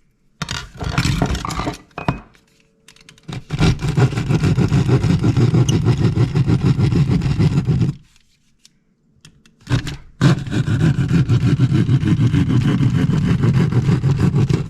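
Handheld cordless drill/driver running in two long steady runs of about four seconds each, driving screws to fix an electrical box to a wall stud, after a few short scraping sounds.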